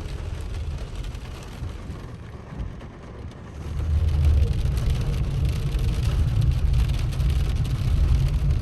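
A car on the move in rain: steady road and engine rumble with rain noise, getting louder about three and a half seconds in.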